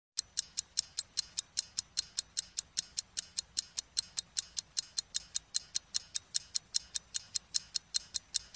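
Steady, rapid ticking: sharp, thin, high ticks evenly spaced at about five a second.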